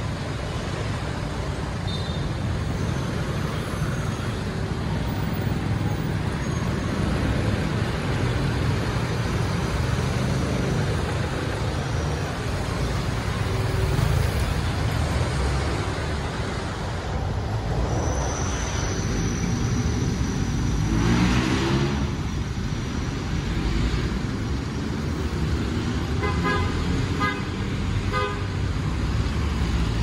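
Steady rumble of city street traffic, with jeepneys, cars and motorcycles running past. About two-thirds of the way through one engine rises in pitch as it speeds up, and near the end a horn gives a quick series of short toots.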